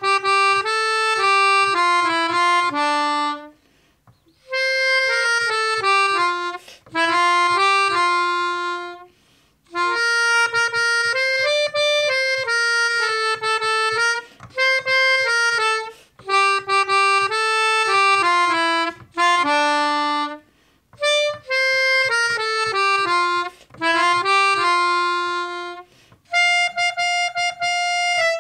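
Melodica (keyboard harmonica) playing a single-line melody with a reedy tone, in phrases of a few seconds with short pauses between them.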